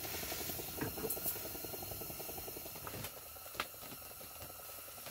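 Crackling rustle of clothing and hands handling ice fishing tackle, with a few light clicks, easing off after about three seconds.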